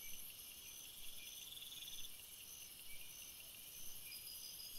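Faint, high-pitched insect chorus: a steady high trill with short calls repeating about twice a second.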